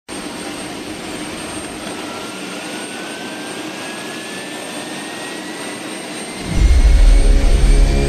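Jet engine whine rising slowly in pitch over a steady rushing noise, then a loud deep rumble coming in about six and a half seconds in.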